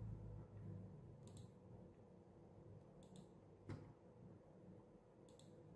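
Near silence with a handful of faint computer mouse clicks, several coming in quick pairs.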